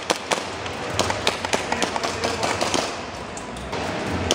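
Scattered airsoft gunfire: irregular sharp pops and clicks of shots, several a second in places.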